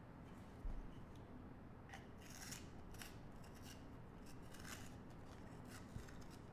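Handwriting on paper: a series of short, scratchy strokes of the writing tip across the sheet. A soft low thump comes just under a second in.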